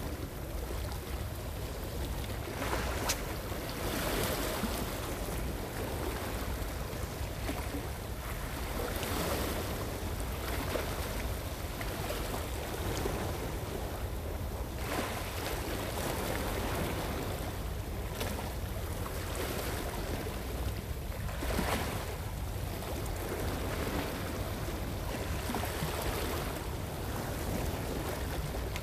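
Sea waves washing against shore rocks, swelling irregularly every few seconds, over a steady low wind rumble on the microphone.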